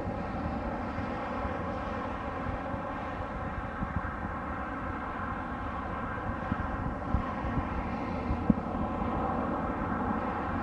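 A steady engine drone with a whine of several held tones, over low rumble and gusty thumps of wind on the microphone.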